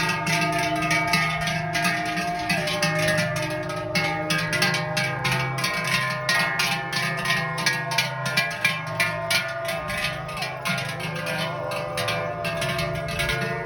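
Music: a zither-like plucked or hammered string instrument playing quick, even notes over held tones.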